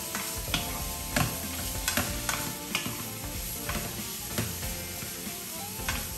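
Smoked meat sizzling in a frying pan, with a wooden spatula scraping and tapping against the pan as the meat is stirred, in irregular strokes about two a second.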